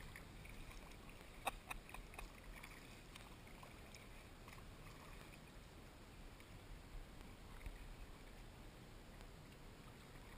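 Faint water and paddling noise from a kayak underway, with a couple of sharp clicks about a second and a half in.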